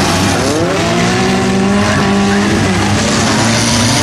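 Race car engines running hard, one revving up about half a second in and then holding a steady high pitch, over dense engine and track noise.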